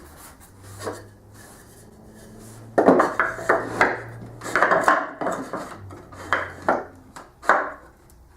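Wooden blocks being handled and fitted: a run of short, irregular wood-on-wood scrapes and knocks starting about three seconds in, under a faint steady hum.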